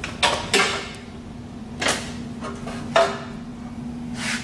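Factory intercooler heat exchanger clunking and scraping against the car's front-end frame and bumper beam as it is lifted and worked out: about five separate knocks, the loudest a little over half a second in and about three seconds in.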